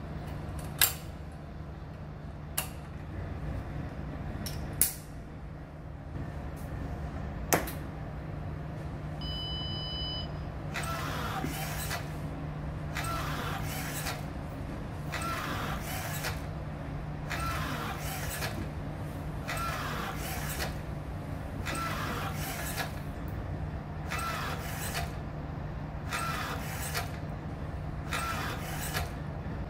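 Motor-driven emergency ventilator compressing a bag-valve-mask (Ambu bag) with a steel cable and pulley. A few sharp knocks as the bag is fitted, a short electronic beep about ten seconds in, then an even cycle of motor whir and air rushing through the bag valve about every two seconds, over a steady low hum.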